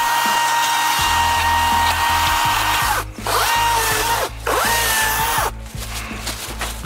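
EGO 16-inch battery chainsaw's electric motor running at full speed with a steady high whine. It is let off briefly twice and spins back up each time with a rising whine, then stops near the end.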